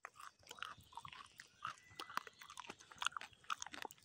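Close-up chewing of a campfire-baked potato with a crisp, charred skin: irregular crunching that the eater calls the right sound of a properly baked potato.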